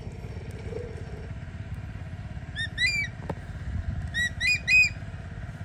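Bird giving short, shrill, rising-and-falling call notes in two quick runs of about three notes, one a little under three seconds in and one near the end, over a steady low rumble.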